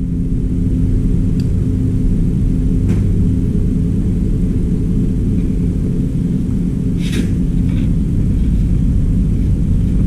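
A steady, loud low machine hum and rumble, with a few light clicks, the clearest about seven seconds in.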